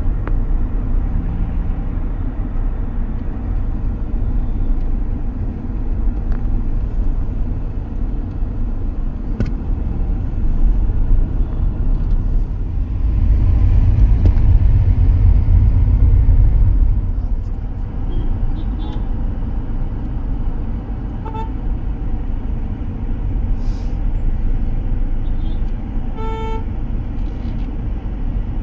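City street traffic: a steady rumble of engines and tyres that swells for a few seconds midway as a vehicle passes close, with short horn toots near the end.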